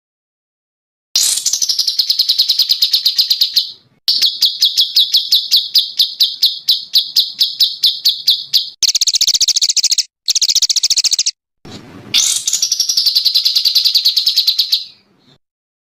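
Recorded songbird song spliced together: fast trills of rapidly repeated notes around one high pitch, in several phrases. A quicker, higher rattle comes about nine seconds in. The phrases break off abruptly into dead silence between edits.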